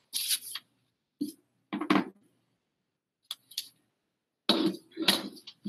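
Paper rustling and small objects being handled and set down on a desk, in short irregular bursts with a few light clicks.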